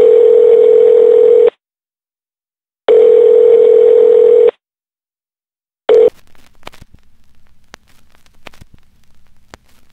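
Telephone ringback tone: a steady low beep sounds twice for about a second and a half each, with pauses between, which is the signal that the called phone is ringing. A third ring is cut short about six seconds in, followed by faint clicks and low background noise.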